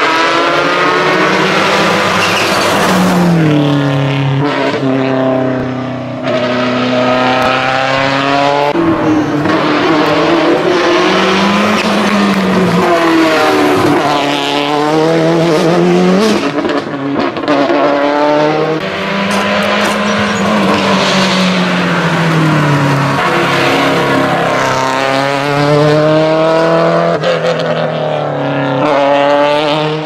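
Subaru Impreza WRC rally car's turbocharged flat-four engine revving hard, its pitch climbing through the gears and dropping off the throttle again and again over a string of fast passes.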